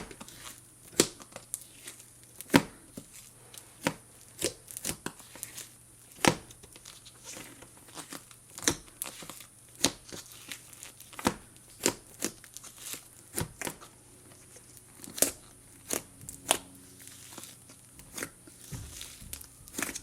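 Clear-glue slime with hydrogel beads being squished and poked by hand, giving sharp, irregular pops and crackles about once or twice a second.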